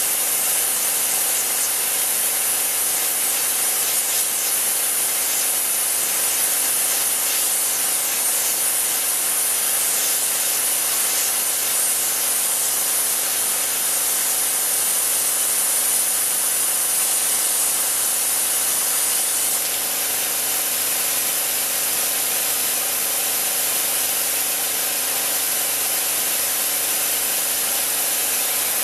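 Myford Super 7 CNC lathe parting off: the three-phase spindle motor runs steadily while the parting tool cuts into the spinning workpiece, giving an even, high hiss over a steady machine hum. The hiss eases slightly about two-thirds of the way through.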